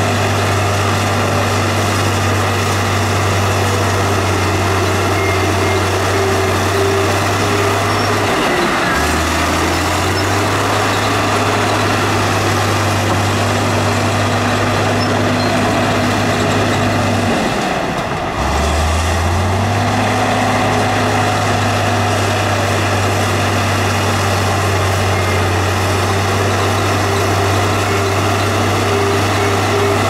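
Heavy earthmoving machine's diesel engine running under load. Its pitch sags twice, about a third of the way in and again past halfway, then climbs back.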